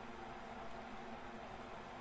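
Steady low hiss with a faint hum: background room tone, with no distinct events.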